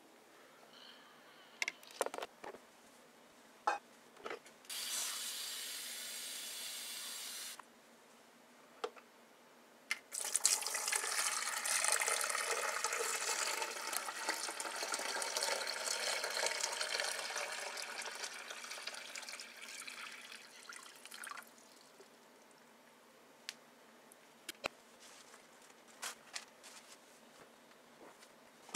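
Water poured from a glass coffee-maker carafe into a drip coffee maker's reservoir, a wavering rush that runs for about ten seconds, with a shorter steady rush of running water a few seconds before it. Scattered clicks and knocks of the carafe and machine being handled.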